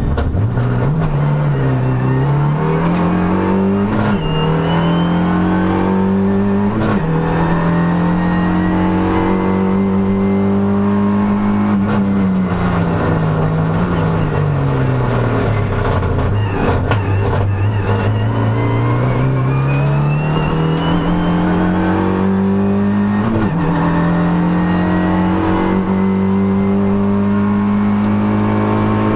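Race car engine heard from inside the cockpit, revving up through the gears with abrupt drops in pitch at each upshift, about four times. It holds steady revs for a few seconds, falls away slowly as the car slows for a bend, then climbs again to another upshift.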